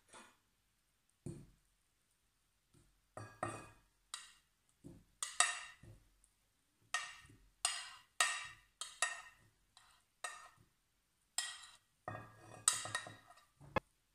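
A metal fork scraping and clinking against a ceramic serving tray while boiled potato pieces are pushed off into a glass bowl: a string of short, ringing clinks and scrapes, about one every half second to second.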